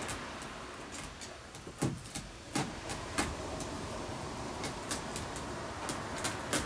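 Irregular light taps and clicks as a Persian cat bats at a string toy and paws at a sisal scratching post, with two fuller knocks a couple of seconds in, over a steady background hiss.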